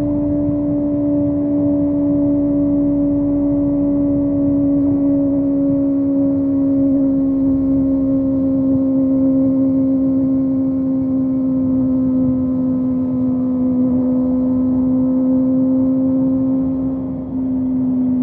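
Kawasaki ZX-25R's 250 cc inline-four engine running at high revs at a steady cruise, its pitch slowly easing down, with wind rushing past. The note dips briefly near the end.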